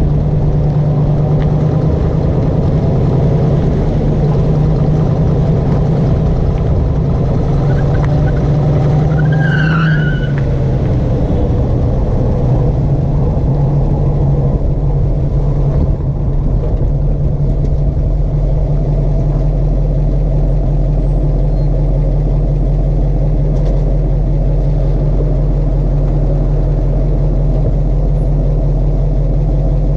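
1958 Corvette's V8 engine running as the car drives slow, tight right-hand circles, with no grinding from the right rear wheel. A brief squeal comes about ten seconds in. From about seventeen seconds the engine note settles into a steadier hum.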